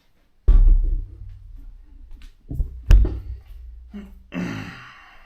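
Heavy thuds and knocks as a car seat is handled and set into place in the car, three strong hits with the loudest about three seconds in, then a brief rustle near the end.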